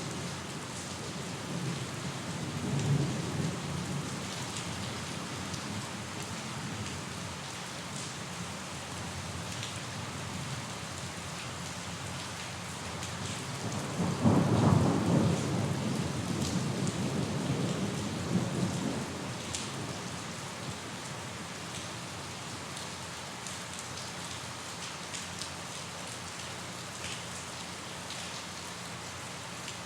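Steady heavy rain falling, with thunder rumbling: a soft roll a few seconds in and a louder rumble about halfway through that dies away over several seconds.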